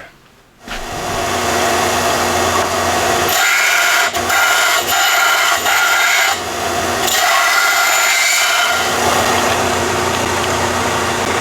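Electric power sander running, starting about half a second in, grinding down the edges of a blow-off valve weld flange so it sits snugly on 3-inch intercooler pipe; the tone rises to a higher grinding sound twice as the flange is pressed into it.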